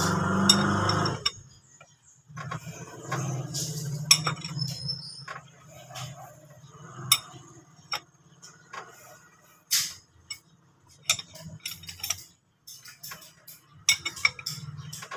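Scattered metallic clinks and knocks of hand tools working on an engine as the crankshaft pulley is turned by hand to bring the engine to top dead centre, with a louder cluster of clicks in the last few seconds.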